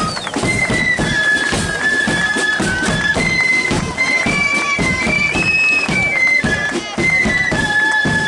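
Marching flute band playing a tune: many flutes in unison carry a high melody over steady drumming.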